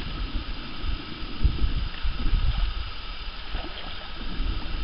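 Wind buffeting the microphone in uneven low gusts, over a steady faint outdoor hiss.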